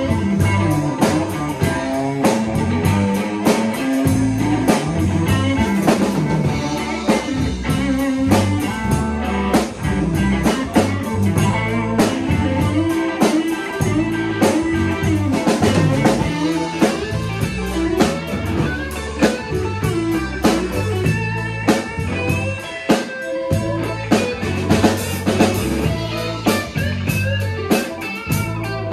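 Live electric blues band playing a funky blues tune: electric guitar lines over bass and a drum kit, with no singing.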